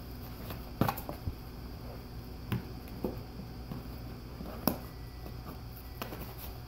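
Golden retriever chewing and tearing a cardboard cereal box: about half a dozen short, sharp rips and crunches, the loudest about a second in and again about two-thirds of the way through, over a steady low hum.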